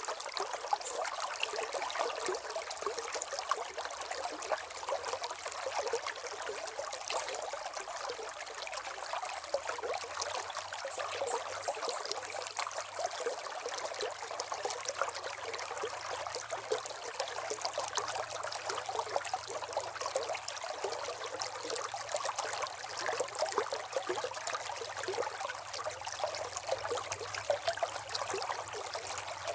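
River water running and babbling steadily, with many small splashes and no deep rumble.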